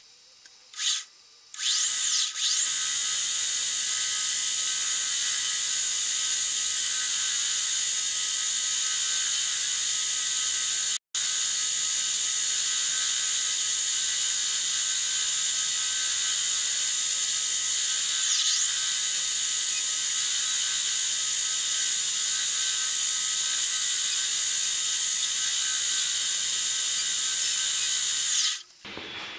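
Metal lathe running with a steady whine from its drive and gears while a grooving tool cuts a groove into the spinning metal bar. A few light clicks come first; the lathe starts about two seconds in, drops out for an instant near the middle, and stops just before the end.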